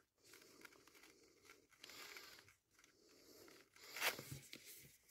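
Faint rustling of fabric as a small ribbon bow is pushed into a snug fabric pocket, with a slightly louder rustle about four seconds in.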